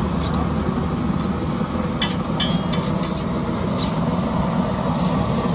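Steady rumble of street traffic, with a short cluster of sharp clicks and taps about two seconds in, one with a brief metallic ring, and one more tap a little later.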